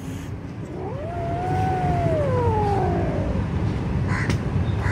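Young kitten giving one long, drawn-out angry meow aimed at a Labrador, its pitch rising and then slowly falling, starting about a second in.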